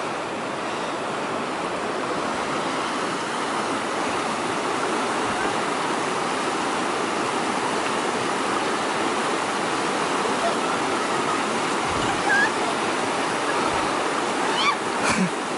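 Mountain stream running, a steady rush of water with no let-up. A couple of faint short knocks come near the end.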